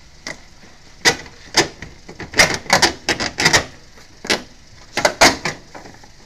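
A hand tapping and pressing on a car's plastic tail-light lenses and the rear body panel: about a dozen sharp, irregular knocks and clacks, thickest in the middle.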